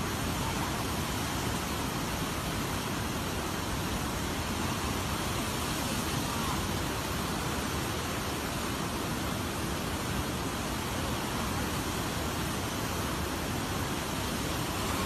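Steady rush of a swollen, muddy river in flood, its fast current churning and breaking into waves along the bank.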